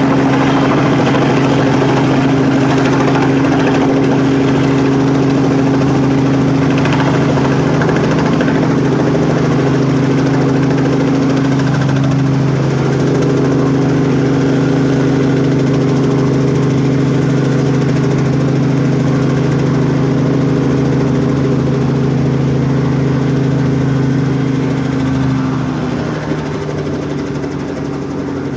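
Small helicopter descending to land, its rotors and engine running loud and steady. Near the end its tone drops and it gets quieter as it settles on the ground.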